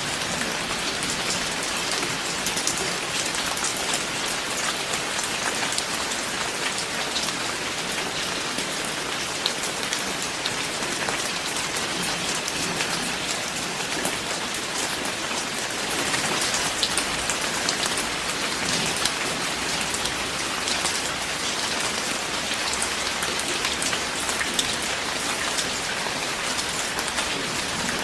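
Steady rain falling, with many individual drops striking a surface close by over an even wash of rainfall.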